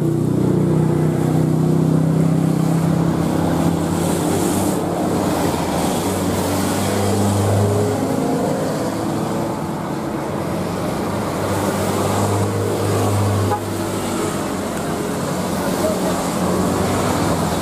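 Steady jet engine noise from a Garuda Indonesia CRJ1000 regional jet's twin rear-mounted turbofans as it moves along the rain-soaked runway, with a low drone that drops off abruptly about thirteen and a half seconds in.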